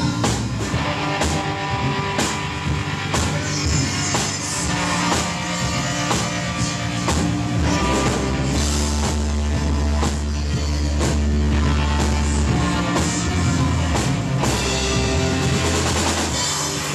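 A live rock band playing: drum kit, electric guitar and synthesizer together over a steady beat. A deep bass note swells in about eight seconds in and holds for about four and a half seconds.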